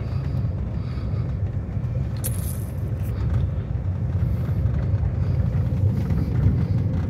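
Car driving on an unpaved dirt road, heard from inside the cabin: a steady low rumble of the moving car.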